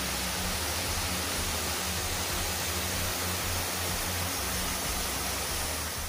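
Waterfall: a steady rush of falling water, even and unbroken.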